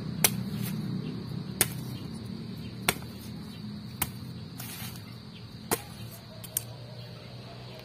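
Bolo knife chopping into the stalk of a fallen saba banana bunch: six sharp strikes about a second or so apart, over a low steady hum.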